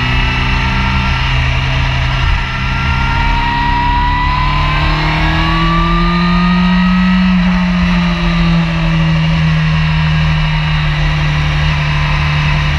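Honda sportbike engine running hard at track speed, its pitch climbing steadily as the bike accelerates through the middle of the stretch and then holding. Steady wind rush underneath it.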